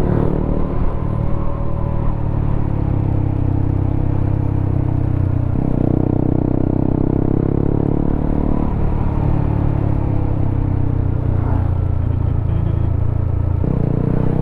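Honda CBR motorcycle's engine running under way through a WRX K3 oval aftermarket silencer on the stock header. The engine note shifts in pitch a few times, about 6 s and 9 s in and again near the end.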